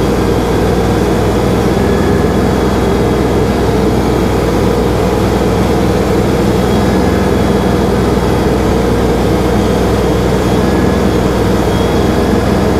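LS MT342 compact tractor's diesel engine running steadily while its front loader lowers a heavy, water-filled IBC tote.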